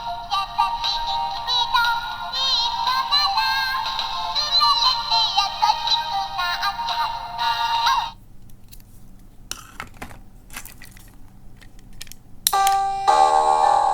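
A small electronic sound toy playing a synthesized sung melody that cuts off abruptly about eight seconds in. A few clicks of handling follow, then a new bright chime-like electronic tone starts near the end.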